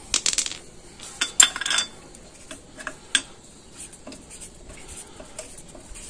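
Metal clinks and rattles of steel wheel bolts being handled and turned in by hand at a car's wheel hub: a cluster of sharp clinks in the first two seconds, then scattered single ticks.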